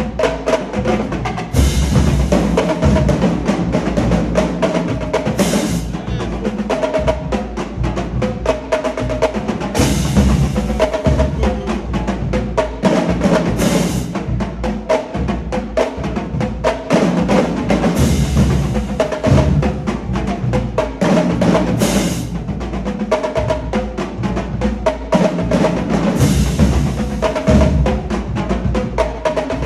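College marching drumline playing a cadence: snare, tenor and bass drums in fast, dense interlocking rhythms, with cymbal crashes about every four seconds.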